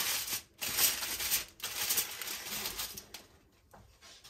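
Aluminium foil crinkling in short, crackly bursts as it is crimped by hand around a roasting dish, fading near the end.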